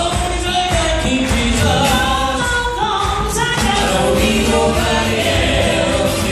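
Male vocal trio singing a gospel song together into microphones through a church PA, over instrumental accompaniment.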